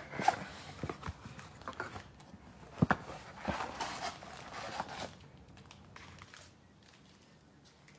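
Cardboard card box being opened and a stack of foil-wrapped trading-card packs pulled out: rustling and crinkling with scattered clicks and one sharp knock about three seconds in, going quieter after about five seconds.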